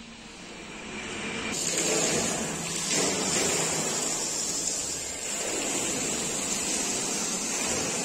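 A steady rushing hiss starts about a second and a half in and carries on, swelling and easing a little.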